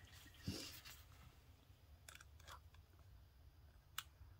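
Near silence, with faint handling of paper: a brief soft rustle about half a second in, a few faint ticks, and one short sharp click near the end.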